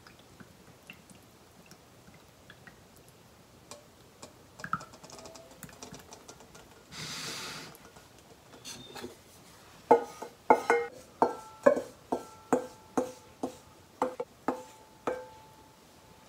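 A wooden spatula tapping and scraping inside a stainless steel bowl, about a dozen sharp knocks roughly two a second, each leaving the bowl ringing briefly, as the last of the thick bean paste is knocked out. Earlier there is a short soft rush as the slurry pours into a cloth-lined bowl.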